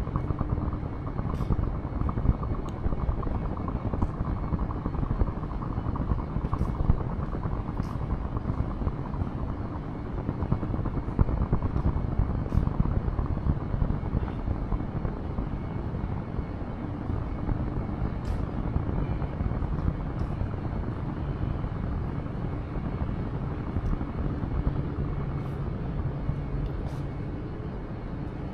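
Helicopter flying overhead: a steady, low rotor chop with a rapid pulse.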